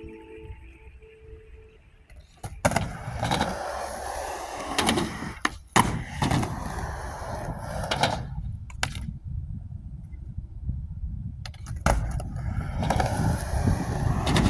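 Skateboard wheels rolling over pavement, a steady rumble with sharp clacks of the board now and then. It starts about two and a half seconds in, drops off for a couple of seconds past the middle, and picks up again.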